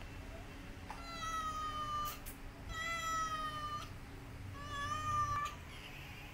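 Calico mother cat meowing three times, long drawn-out calls of about a second each, each sliding slightly down in pitch.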